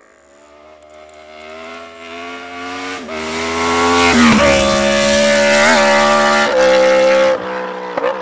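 Yamaha MT-10 inline-four with an SP Engineering carbon end can and de-cat stainless Y-piece, accelerating hard past the roadside. The engine note grows steadily louder, with two brief dips in pitch as it shifts up, and is loudest in the second half. Near the end the throttle is shut and there are a few sharp pops.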